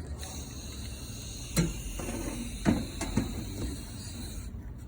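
Dry firewood burning with a steady hiss and three sharp pops, the loudest near the middle; the hiss dies away near the end.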